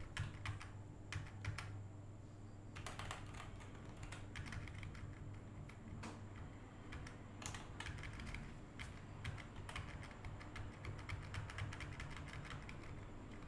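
Computer keyboard keys being pressed in quick, irregular runs of clicks, over a low steady electrical hum.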